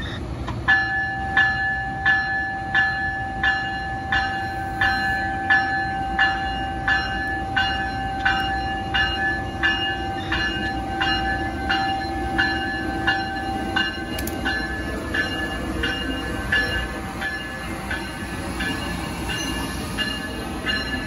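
Amtrak ACS-64 electric locomotive's bell ringing steadily, about one and a half strikes a second, as the train pulls past. Under it is the low rumble of the locomotive and cars rolling by.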